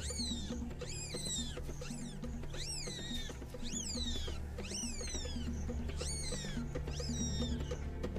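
Mongoose squealing: a run of shrill calls, each sweeping up sharply and falling away, about one a second, over background music.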